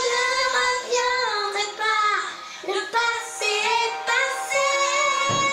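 A high voice singing a tune with long held notes that glide between pitches.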